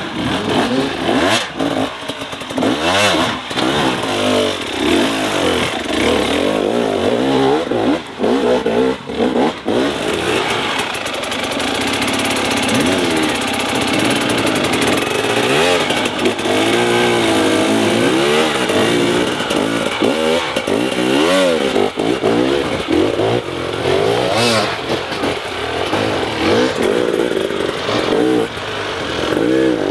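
Hard enduro dirt bike engine revving up and down repeatedly, its pitch rising and falling every second or two as the throttle is worked.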